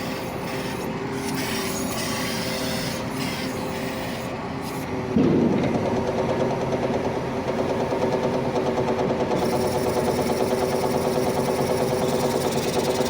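Crane hydraulic pump running with a steady mechanical hum. About five seconds in it suddenly gets louder and takes on a fast, even rattle, a metallic 'tak tak tak'. It is the abnormal sound that the mechanic traces to the hydraulic pump, whose piston has lost its piston ring.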